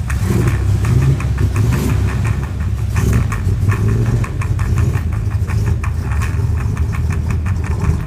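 Vintage pickup truck's engine idling, with an even pulse of about five beats a second.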